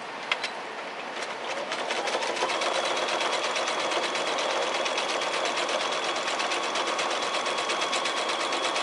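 Domestic sewing machine stitching a quilt-as-you-go block through fabric strips, batting and backing. After a click it speeds up over about a second to a steady, fast run with an even stitch rhythm, then stops.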